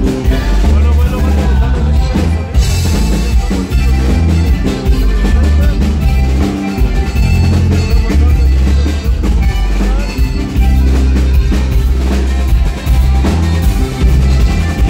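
Live norteño-style group playing upbeat dance music: button accordion and drum kit over a heavy bass line with a steady beat.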